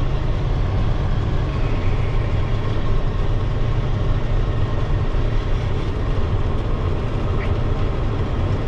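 Peterbilt dump truck's diesel engine pulling the empty truck up a gravel road, heard from inside the cab as a steady low rumble with tyre and road noise. The truck is climbing without the inter-axle lock engaged.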